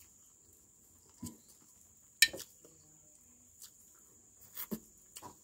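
Close-up mouth sounds of eating fish by hand: a few scattered wet lip smacks and clicks while chewing and sucking on fish bones and fins. The sharpest click comes about two seconds in, and a small cluster comes near the end.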